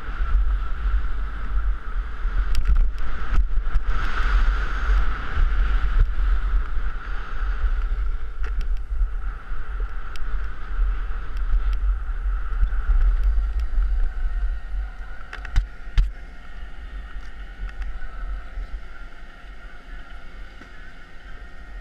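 Wind buffeting the microphone of an action camera while skiing downhill, with a steady hiss of skis sliding over packed snow. It eases off in the last third, and two sharp knocks come about two thirds of the way in.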